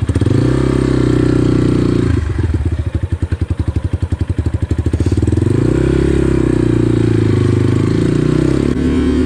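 GPX FSE 250 enduro motorcycle engine revving under load as it fights to get over a log in a creek. The revs sag to a slow, lugging beat about two seconds in, then pick up again about halfway through.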